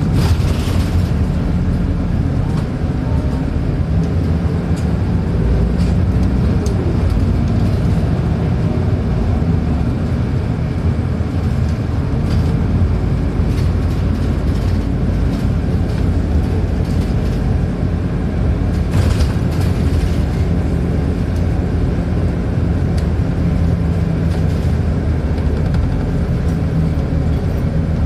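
City bus interior while driving: the bus engine running with a steady low hum, and road noise.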